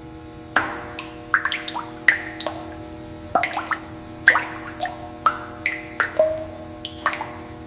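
Background music: a held chord with short plucked, water-drop-like notes on top, about two a second.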